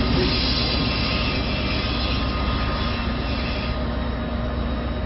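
Diesel locomotive running with a steady deep rumble. A hissing noise over it eases off about four seconds in.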